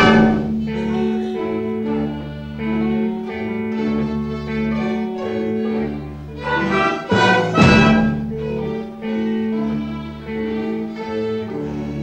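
Student orchestra playing live: violins and cello carry sustained notes over a long held note underneath, with a loud accented swell about seven and a half seconds in.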